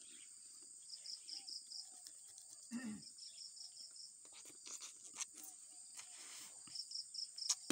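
Steady high-pitched insect drone, broken three times by short runs of rapid, evenly spaced chirps. Scattered sharp clicks sound close by.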